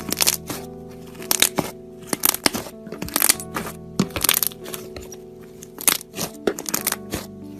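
Slime being squeezed and pressed, making irregular crackling pops several times a second, over soft background music.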